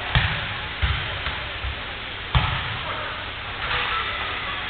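Futsal ball being kicked and bouncing on the court: about five sharp thuds in the first two and a half seconds, over steady background noise.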